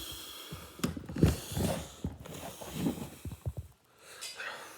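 A run of irregular knocks and clatter, loudest a little over a second in, stopping a little before the end.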